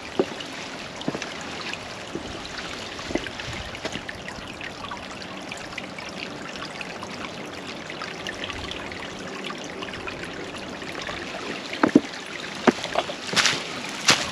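Shallow creek water trickling and babbling steadily, with a few sharper knocks near the end.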